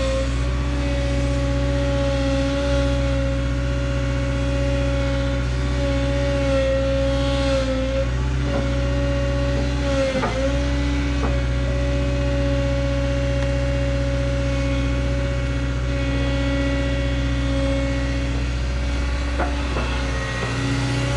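Caterpillar 317 hydraulic excavator's diesel engine running steadily as the machine works slowly. A sharp knock comes about ten seconds in, with a couple of smaller clicks near the end.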